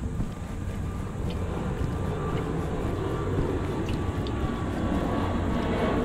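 A low engine rumble that grows slowly louder, with a faint thin whine above it and wind buffeting the microphone.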